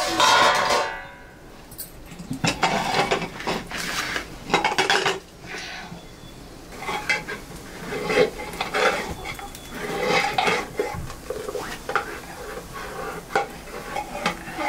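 Metal ladle scraping and knocking against the inside of a metal pot as food is stirred and mashed. It opens with a loud ringing clatter, followed by many quick scraping strokes.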